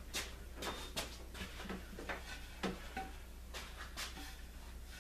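Scattered light knocks and clatter of wooden boards being sorted by hand, one board picked up, over a steady low hum.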